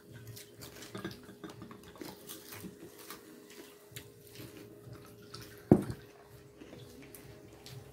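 Cola poured from a glass Coca-Cola bottle into a glass, a faint liquid pour with scattered small clinks. One sharp knock stands out about six seconds in.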